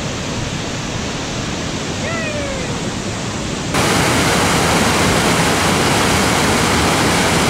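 Steady rush of water tumbling down a rocky mountain stream's cascades. About four seconds in, the rushing becomes suddenly louder and brighter.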